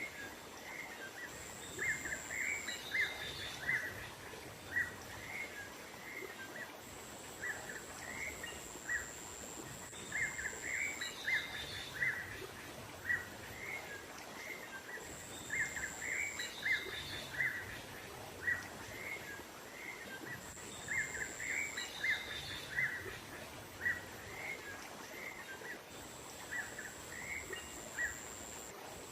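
Small songbirds chirping in quick runs of short high notes, a bird-lure call recording that repeats in clusters every few seconds. A thin, very high steady tone comes in for a second or two about every five or six seconds over a faint background hiss.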